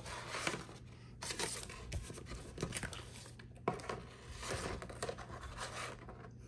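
Pokémon trading cards being handled: a series of short rustles and scrapes as the cards are shuffled and slid against each other.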